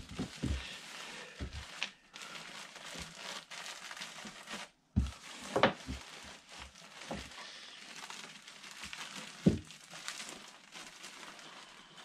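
Fiberglass insulation and its plastic covering crinkling and rustling as it is wrapped by hand around a metal dryer vent. A few knocks and thumps come through, the loudest about five and a half and nine and a half seconds in.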